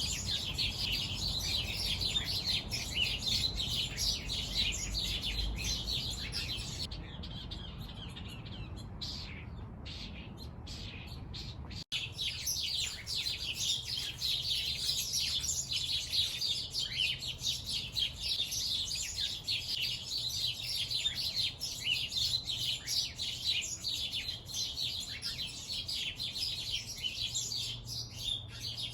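Many small birds chirping at once in a dense, continuous twittering. It thins out from about seven seconds in, cuts out for an instant near twelve seconds, then returns as thick as before.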